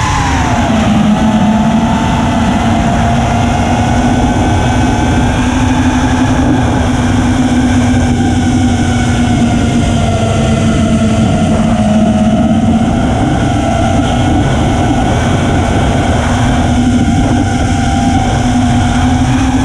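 Four iFlight 1750KV brushless motors of a 5-inch FPV racing quadcopter, heard from the onboard camera, whining in a pitched buzz. The pitch drops about half a second in as the motors slow, holds steady for most of the flight, then rises again near the end as they speed up. Wind rushes over the microphone.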